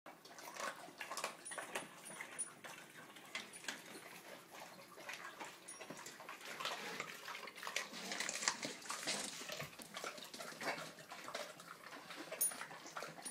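Dogs eating raw chicken from stainless steel bowls: wet, irregular chewing and smacking with many sharp clicks and knocks, busiest about eight to nine seconds in.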